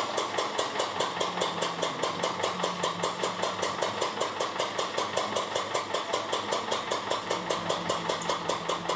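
Gasoline engine driving a sugarcane mill's gears, running at a steady pace with an even, rhythmic mechanical clatter of about six beats a second.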